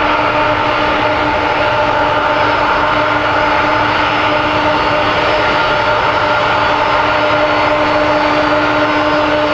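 Jet engines of a large cargo aircraft running steadily: a loud rushing noise with several whining tones held at one pitch.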